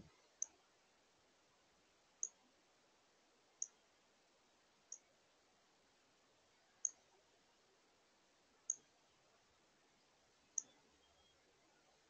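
Northern cardinal giving sharp, high chip notes, seven of them, one every couple of seconds.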